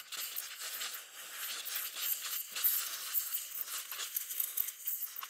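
Scratchy, irregular rubbing and scrubbing as the engine's intake mating surface is wiped clean after a spray of carb cleaner.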